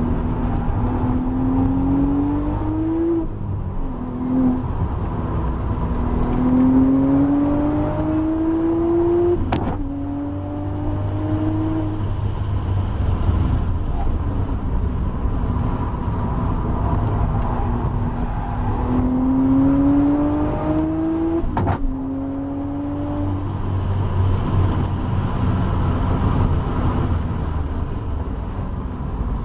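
Audi B5 RS4's tuned 2.7-litre twin-turbo V6 under hard acceleration, heard from inside the car, its note rising through the gears. Sharp cracks about ten and twenty-two seconds in mark flat-shift upshifts, made with the throttle held open, and the note drops after each.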